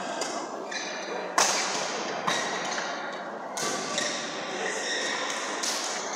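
Badminton rally: racket strings striking the shuttlecock several times, the sharpest hit about a second and a half in, with short high squeaks from shoes on the court floor between the hits.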